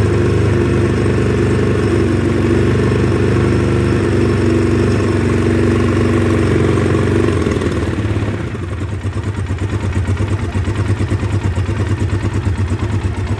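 2009 Polaris Sportsman 800's twin-cylinder engine running at a fast idle, then dropping about eight seconds in to a lower, uneven, pulsing idle. It is running rough with fuel injection cleaner in the fuel, which the owner puts down to injectors gummed up from sitting.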